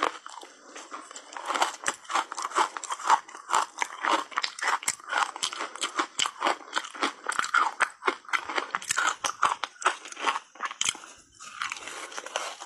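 Reshaped ice coated in matcha powder being bitten and chewed close to the microphone: dense, rapid crunching, with a short lull near the end.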